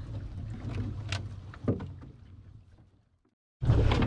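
Low rumble aboard a small fishing boat, with a few sharp knocks. It fades out to silence about three seconds in, then cuts back in louder half a second later.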